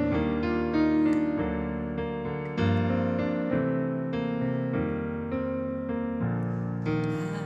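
Solo piano playing held chords, the introduction to a song before the voice comes in.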